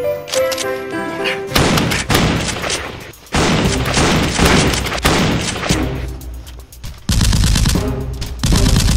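Rapid gunfire in three long bursts, starting about a second and a half in, over a music score that plays alone at first and carries on underneath.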